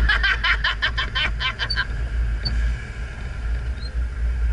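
Lifted Suzuki Sidekick driving over snow, heard as a steady low rumble of the engine and drivetrain on the hood-mounted microphone. For the first two seconds there is a quick run of high, rapid pulses, about seven a second, whose source is unclear.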